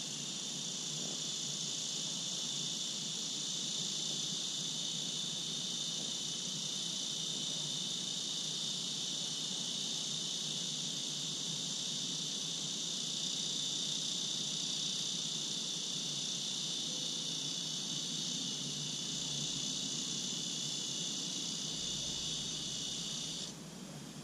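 Insects droning in a steady, high-pitched chorus that cuts off abruptly near the end.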